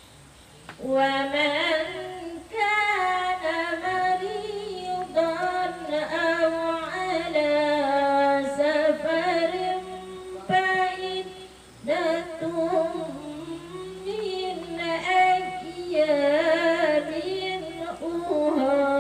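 A woman reciting the Quran in a melodic chant, holding long gliding notes in phrases broken by short pauses for breath.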